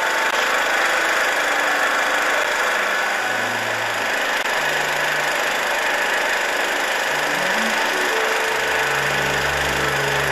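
Background music of slow, held low notes over a steady, loud noisy hum.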